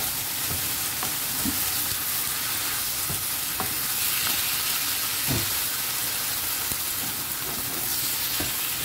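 Sliced pork, onion and tomato sizzling steadily in a hot oiled wok as a wooden spatula stirs them, with a few light knocks and scrapes of the spatula against the pan.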